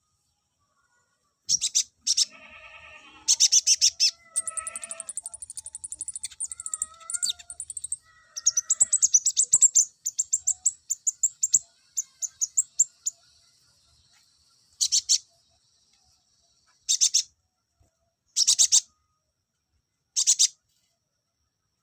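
Kolibri ninja (konin) sunbird song: high, fast chirping bursts and a long rapid trill, then short separate chirp bursts every second or two near the end. This is a male's song, played to rouse other males to sing.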